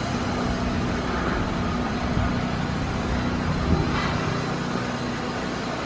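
Steady city street traffic noise with a low, even hum.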